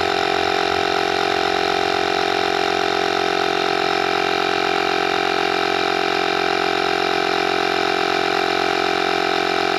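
Vtoman X1 jump starter's built-in air compressor running steadily at one even pitch, partway through inflating a car tire toward its preset 32 PSI auto-shutoff.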